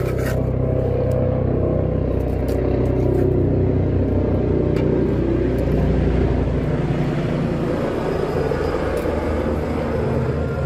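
Helicopter flying over: a steady, loud, low rotor and engine drone whose pitch slides slowly. Its deepest part thins out after about seven seconds.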